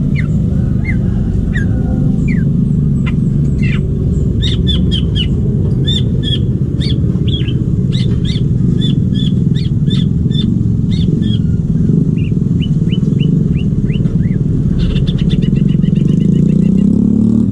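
Green leafbird (cucak ijo) calling in quick chirps and short whistled notes, over a loud, steady low rumble whose pitch shifts near the end.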